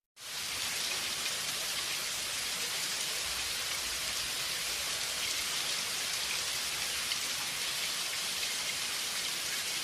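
Steady rain falling, an even hiss throughout after fading in at the start.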